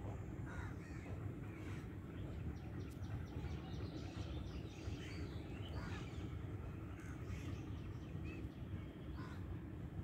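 Crows cawing, several separate calls scattered through a few seconds, over steady low background noise.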